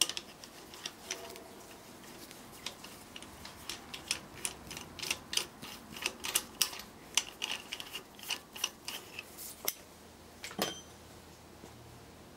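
Hand socket wrench on an extension bar working a main bearing cap bolt on an engine block: a run of irregular metallic clicks and clinks, thickest in the middle, with a louder ringing clink near the end.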